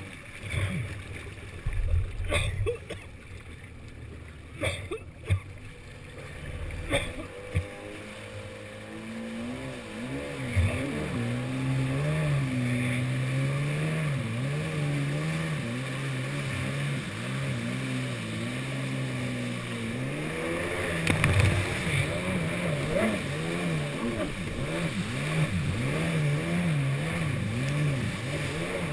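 Yamaha SuperJet stand-up jet ski: water sloshing and splashing around the craft at first, then about nine seconds in its engine comes up in pitch and runs at speed, the pitch wavering up and down over the rush of spray.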